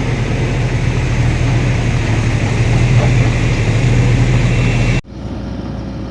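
Heavy engine running steadily with a strong low hum. It cuts off abruptly about five seconds in to a quieter engine hum.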